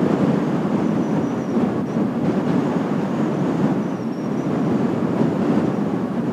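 Strong gusting wind buffeting a windshielded microphone: a steady, rushing rumble that swells and eases.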